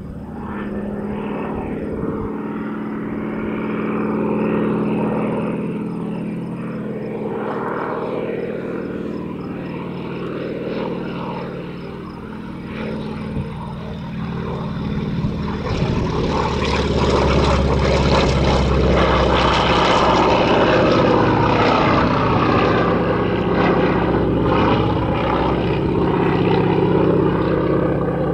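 Grumman Ag Cat crop duster with a Super 600 engine and geared three-bladed propeller running steadily as it sprays a field, its pitch bending slowly as it passes. It grows louder about halfway through as the plane comes nearer.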